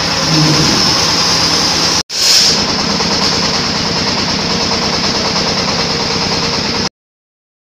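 Stainless steel sugar grinding machine running at full speed while milling sugar into fine powder: a loud, steady whir with a fast rattle and a high hiss. It breaks off for an instant about two seconds in and stops abruptly near the end.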